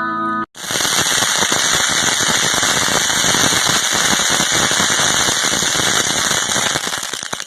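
Bonfire crackling: a dense, continuous run of sharp pops and snaps that starts suddenly about half a second in and fades near the end.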